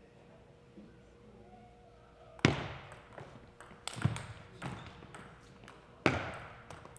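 Table tennis rally: the ball struck by the paddles and bouncing on the table in a run of sharp clicks starting about two and a half seconds in. The two hardest strikes come at the first hit and about six seconds in.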